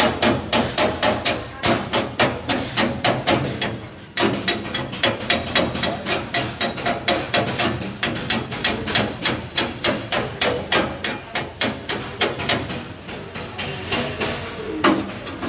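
Steel chipping hammer striking a freshly welded steel joint in quick, even blows, about four a second, knocking slag off the weld. The blows break off briefly about four seconds in and grow fainter near the end.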